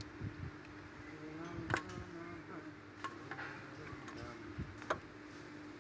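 Faint clicks and knocks of hand and tool work on a car alternator's output-cable terminal, with two sharper clicks, one near two seconds in and one near five seconds in.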